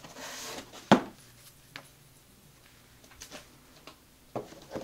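Paper and cardboard being handled as an instruction manual is lifted out of a foam-lined cardboard box: a short rustle, a sharp tap just under a second in, then a few faint taps and clicks.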